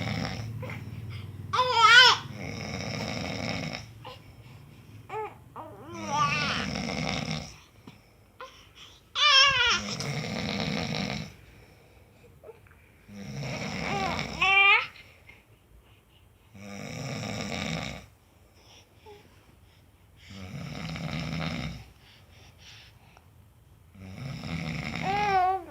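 A man snoring in a steady rhythm, one long rasping snore every three to four seconds. In the gaps a baby cries out four times in short, high, wavering squeals and coos, its voice sliding up and down; the first squeal is the loudest sound.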